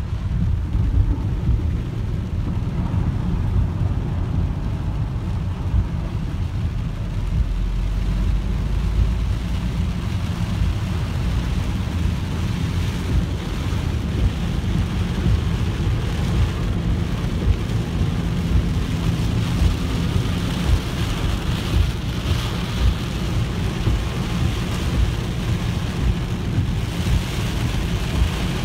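Inside a car driving through torrential rain on a flooded road: a steady low rumble of the car and its tyres running through water, with the hiss of rain and spray on the windscreen and body. The low rumble swells briefly about a quarter of the way in, and the rain hiss grows stronger in the second half.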